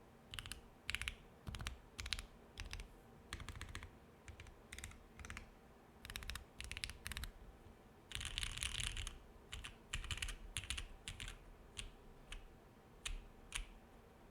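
Typing on a Portal mechanical keyboard with lubed Lavender linear switches, FR4 plate and gummy O-ring mount, under GMK keycaps: uneven bursts of keystrokes, with a dense flurry about eight seconds in, thinning out near the end. A steady low air-conditioner hum runs underneath.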